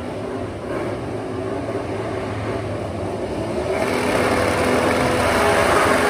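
MotoGP racing motorcycle at speed on the circuit, its engine note growing clearly louder from about four seconds in as it approaches.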